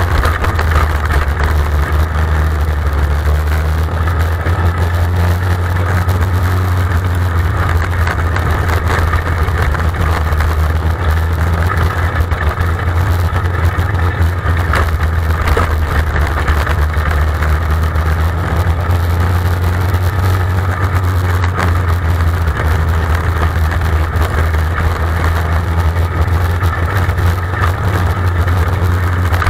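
Small winged sprint-type race car's engine running steadily at low speed, heard close up from the onboard camera: a constant low drone with no big revs or changes in pitch.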